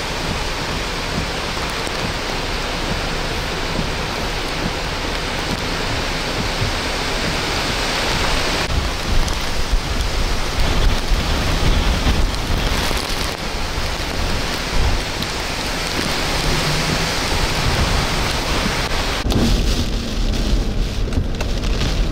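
Hurricane rain and wind: a steady, heavy hiss of driving rain with gusts rumbling on the microphone. Near the end the hiss turns duller and a lower rumble takes over.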